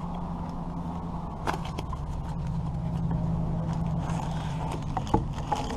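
Cardboard parts box being opened and its contents handled: scattered light clicks, scrapes and rustles. A steady low hum runs underneath and fades about four seconds in.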